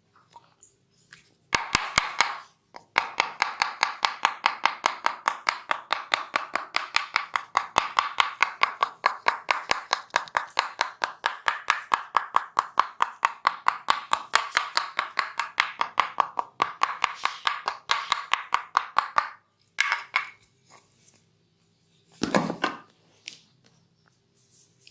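Hands striking a body in a fast percussive chopping massage, an even train of sharp slaps at about four a second with one short break near the start; it stops about three-quarters of the way through. A single duller thud follows near the end.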